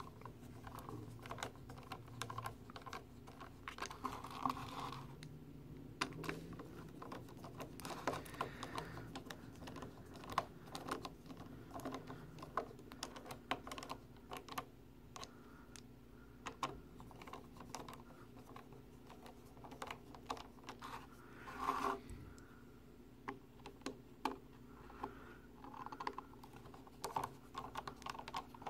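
Screws being driven by hand into the corner posts of a small plastic electronics enclosure: a long run of faint, irregular clicks and light scrapes from the screwdriver, screws and case.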